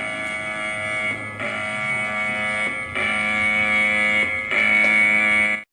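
Electronic emergency alert tone: a steady alarm held at one pitch, in four long blasts of about a second and a half each, separated by brief gaps.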